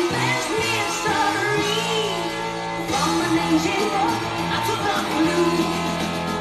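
A song playing: a singing voice over an instrumental backing with held bass notes.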